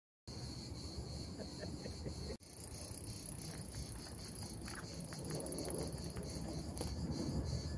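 Insects chirring steadily in a high, finely pulsing band, over a low rumble; the sound cuts out for an instant about two and a half seconds in.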